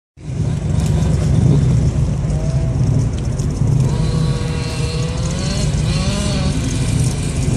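Radio-controlled car running: a steady rumble, with a motor whine that rises and falls through the middle.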